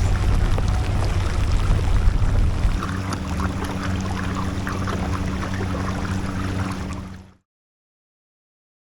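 Water sloshing and wind rumbling on the microphone around a fishing kayak, with a steady low hum joining about three seconds in; the sound cuts off to silence about seven seconds in.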